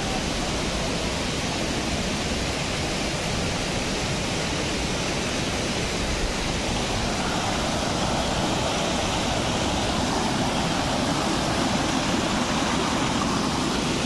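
Steady rush of water from a rocky stream below a waterfall.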